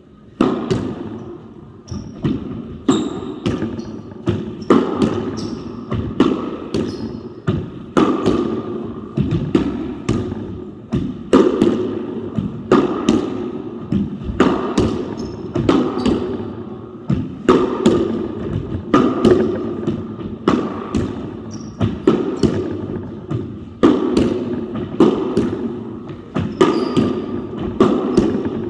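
A ball struck back and forth with racquets and hitting the walls of a squash court, a sharp hit about every one and a half to two seconds, each ringing and echoing in the enclosed court, with quick footsteps on the wooden floor between hits.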